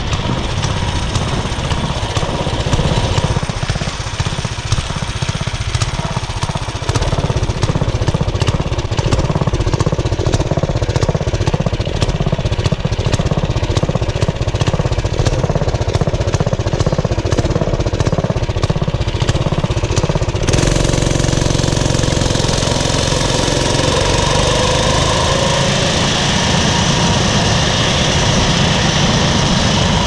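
Briggs & Stratton 6.5 hp Intek OHV single-cylinder engine running under load as the mini bike rides along. The sound shifts abruptly about twenty seconds in.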